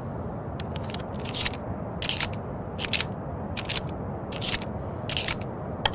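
Remington 870 pump-action shotgun being handled: repeated short metallic clicks and sliding scrapes of its action, a cluster about every three-quarters of a second.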